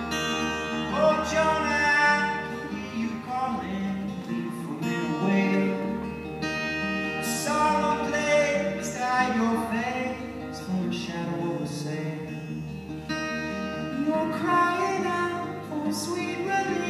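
Live song: acoustic guitar played with a voice singing over it.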